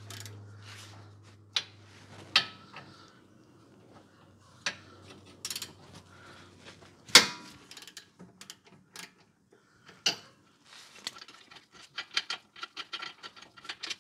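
Socket ratchet clicking and metal tools clinking as the caliper bracket bolts on a rear disc brake are undone. A sharp metallic knock about seven seconds in is the loudest sound, and quick ratchet clicks run through the last few seconds.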